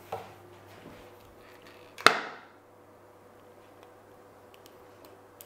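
A single sharp knock about two seconds in, with a short ringing tail, and a couple of faint clicks.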